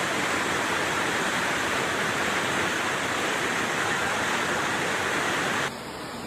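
Rushing floodwater, a steady dense rush of water noise that drops suddenly to a quieter hiss near the end.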